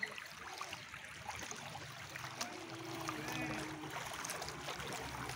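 Floodwater running and sloshing across a street in a steady, even wash of water noise.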